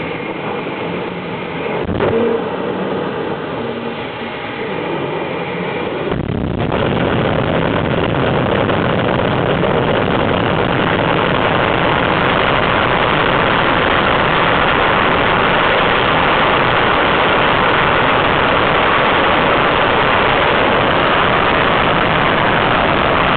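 Gas-turbine jet engine running up: a lower, uneven engine sound at first, then about six seconds in it jumps suddenly to a loud, steady rush of jet noise at high power.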